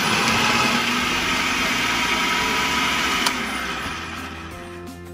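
Electric food processor running on its motor, chopping a carrot and mushroom mixture. About three seconds in it is switched off with a click and the blade spins down.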